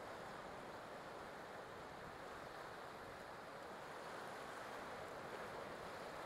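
Faint, steady ocean surf noise with no distinct waves or strikes.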